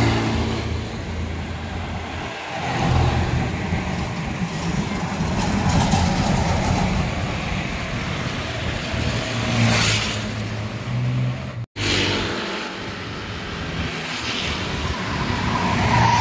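Road traffic passing close by one after another: trucks, a motorcycle and a car, with engine drone and tyre noise swelling as each goes past. The sound drops out for an instant about two-thirds of the way through.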